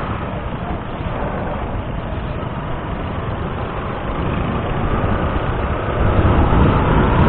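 Wind rushing over an action camera's microphone on a moving motorcycle, with a low road and engine rumble underneath; it grows louder about six seconds in.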